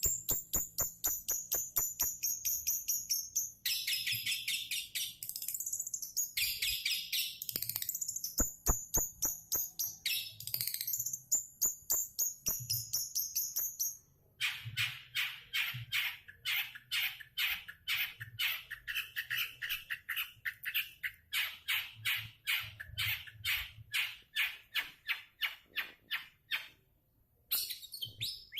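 Long-tailed shrike (cendet) singing: a fast run of short, high repeated notes, several a second, some sliding in pitch, with brief breaks about halfway through and near the end.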